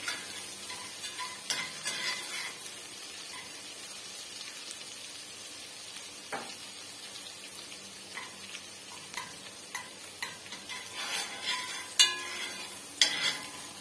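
Minced garlic sizzling in hot ghee in a coated pot, a steady frying hiss. A spoon stirs and scrapes around the pot in the first couple of seconds and again near the end, with a sharp clink of the spoon on the pot about twelve seconds in.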